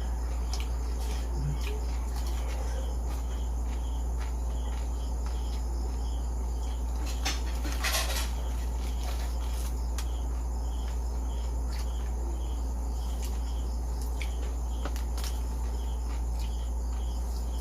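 Eating crispy fried pork: scattered short crunches and clicks, with one longer crunch about eight seconds in. Under it run a steady low hum and faint, evenly repeating chirping of crickets.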